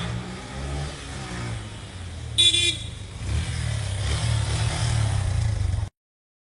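Motorcycle engine running with a low rumble. A short horn honk sounds about two and a half seconds in, then the engine grows louder until the sound cuts off abruptly near the end.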